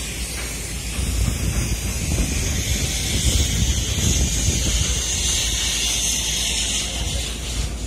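Wind buffeting the microphone with an uneven low rumble, over a steady hiss that grows stronger in the middle.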